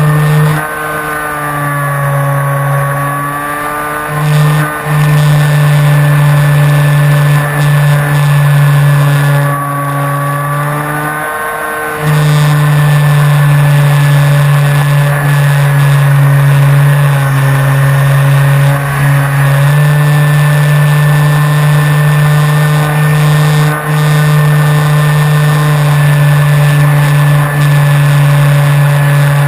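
Flyzone Switch RC plane's electric motor and propeller running, heard close up from a camera mounted on the plane. The throttle eases back twice, from about a second to four seconds in and again around ten seconds in, the pitch sagging and coming back up, then it holds steady at higher power from about twelve seconds on.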